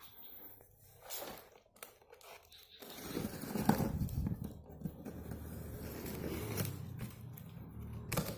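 Cardboard packaging being opened: tape tearing, cardboard scraping and crinkling in scattered short sounds. A low steady hum joins them about three seconds in.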